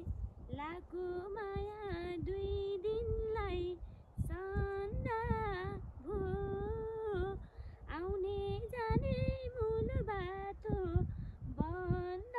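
A woman singing a melody unaccompanied, in phrases of a second or two that hold steady notes and bend at their ends, with short breaths between.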